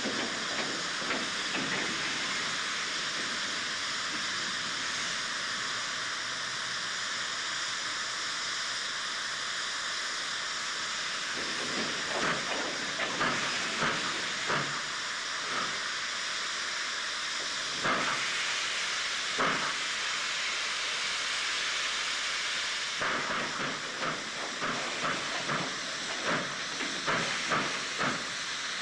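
4-8-2 steam locomotive with a steady hiss of escaping steam. Partway through, separate exhaust beats begin as it gets a heavy train of coal wagons moving; the beats come faster and closer together near the end.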